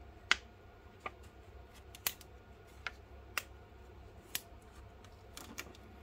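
Handling noise from a plastic pry card and a tablet under gloved hands: about eight sharp, irregularly spaced clicks and taps, the loudest just after the start, over a low steady hum.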